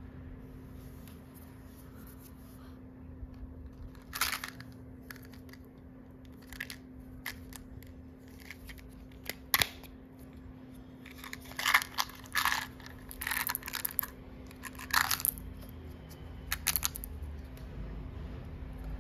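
A small plastic Tic Tac box being handled and opened: scattered sharp clicks and crinkly rustles of the plastic and its label seal. Near the end come a few quick rattles as the mints are tipped out into a palm.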